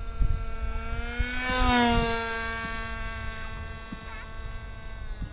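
Sporter .46 radio-controlled model airplane's small engine running at high revs as a steady high-pitched drone. It passes by, loudest about two seconds in, then its pitch falls and it fades as it flies away. Wind rumbles on the microphone.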